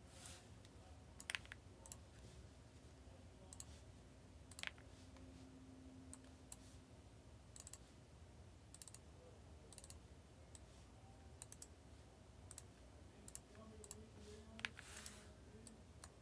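Faint, irregular clicking of a computer mouse and keyboard, single clicks spaced a second or more apart, over a low steady hum.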